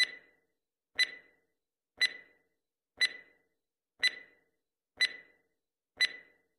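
Countdown timer sound effect: a sharp, ringing tick once every second, seven ticks in a row, each fading quickly.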